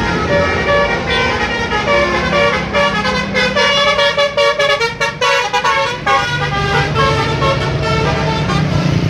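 Basuri telolet bus horn playing a fast melody of many short, changing notes over the bus engine's steady low running. The notes come quickest in the middle.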